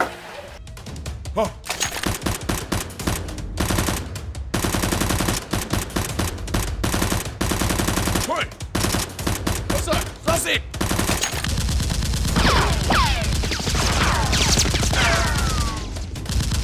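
Rapid volleys of machine-gun-fire sound effects, in bursts with short breaks, followed from about twelve seconds in by sliding whistling tones.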